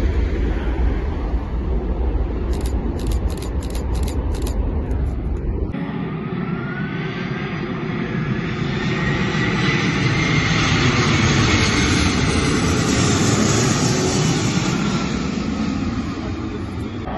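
Jet airliner engines heard outdoors: for the first few seconds a widebody climbing away after takeoff, under heavy wind rumble on the microphone. After an abrupt cut about six seconds in, a widebody jet on low landing approach comes overhead, its engine noise and a whine swelling to a peak past the middle and easing slightly near the end.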